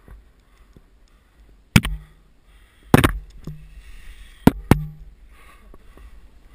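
Climber's body-mounted camera and gear knocking and scraping against sandstone while squeezing up a crack: four sharp knocks, the last two close together, with rubbing and scraping between them.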